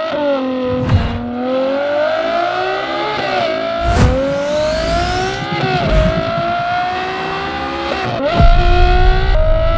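Ferrari 812 GTS's naturally aspirated V12 through a full Kline Inconel exhaust (catalyst downpipes, X-pipe, valved mufflers) accelerating hard. The high-pitched exhaust note climbs steadily in pitch and drops back sharply several times as it shifts up.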